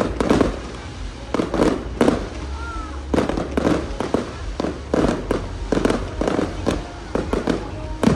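Aerial fireworks bursting in a rapid, uneven series of bangs, about two a second, each followed by echoing rumble and crackle.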